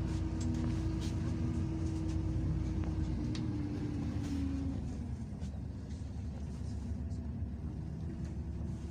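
City bus engine and road rumble heard from inside the passenger cabin while the bus is moving. A droning tone shifts in pitch and fades out about five seconds in, leaving a quieter rumble, with a few faint rattles.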